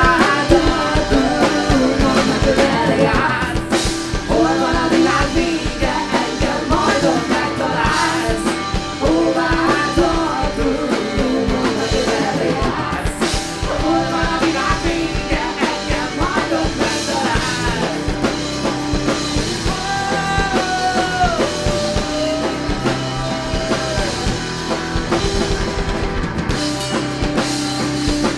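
Rock band playing live, with a lead vocal over drum kit and guitars.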